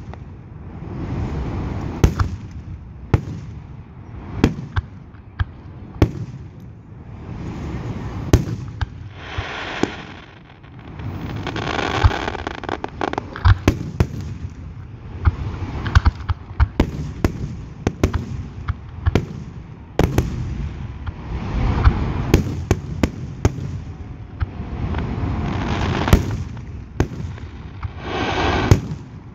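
Aerial fireworks shells bursting overhead in a rapid, continuous run of sharp bangs, over a rushing, crackling haze of noise.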